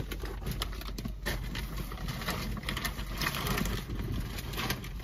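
Rustling and irregular light clicks of things being handled while rummaging in the back seat of a parked car, over a steady low hum.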